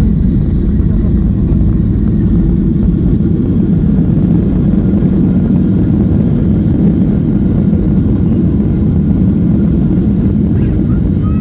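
Steady low rumble of a Boeing 737 slowing on the runway after touchdown, heard from inside the cabin, with its ground spoilers raised.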